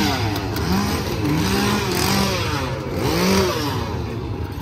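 A small engine revved over and over, its pitch swinging up and down several times.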